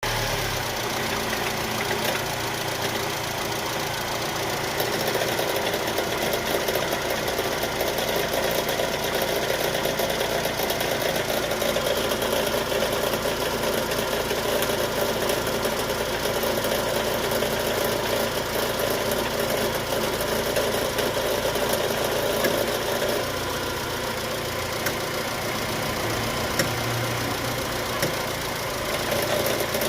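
Chevrolet car engine running steadily at idle, with the abnormal engine noise that the owner is showing as a fault. A few faint clicks come near the end.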